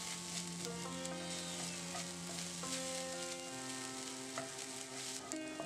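Chopped onion, green chilli and ginger-garlic paste sizzling steadily in hot oil in a nonstick pan, stirred with a wooden spatula that scrapes and taps the pan now and then.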